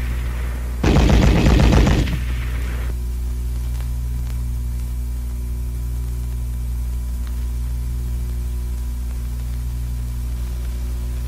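A short burst of machine-gun fire about a second in, lasting about a second and dying away. Then a steady low hum from the old film soundtrack.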